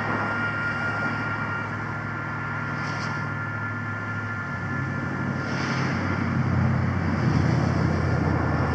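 Low engine rumble that grows louder from about halfway through and is loudest near the end, with a few faint steady high tones held throughout.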